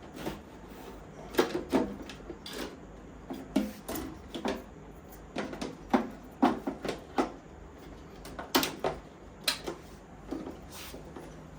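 Irregular clicks and knocks as parts are handled and fitted into a metal server chassis, with a few louder knocks now and then.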